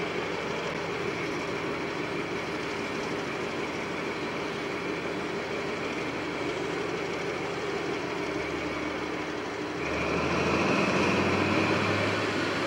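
Train standing at the platform with its power car running steadily. About ten seconds in, the running gets louder and a deeper low note comes in.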